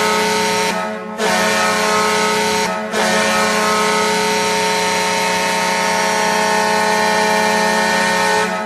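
Ice hockey goal horn blaring a multi-tone chord in three blasts: a short one, a brief break about a second in, another break near three seconds in, then one long held blast that cuts off near the end.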